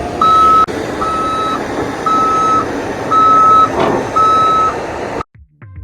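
Backup alarm of a tracked excavator beeping steadily, about once a second at a single pitch, over the machine's running diesel engine while it is driven. The alarm signals that the machine is travelling. The sound cuts off suddenly about five seconds in.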